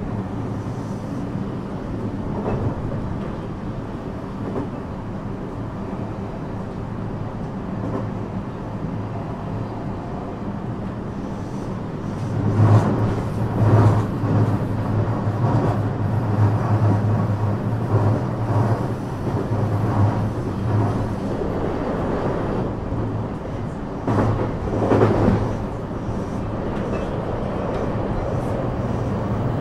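Running noise of a JR West 321 series electric train heard inside the car: wheels rolling on the rails under a steady low hum, growing louder about twelve seconds in, with a few louder jolts.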